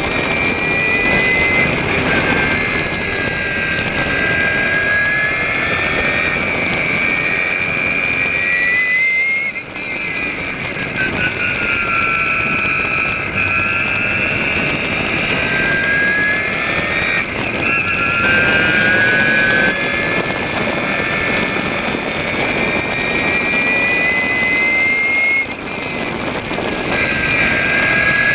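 Maserati Barchetta race car's twin-turbo V6 running hard on track. Its pitch climbs again and again as it pulls through the gears, with a brief drop in level about nine and a half seconds in and again near the end.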